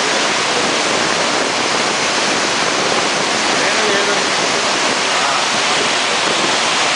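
Floodwater rushing, a loud, steady, unbroken noise of fast-flowing water.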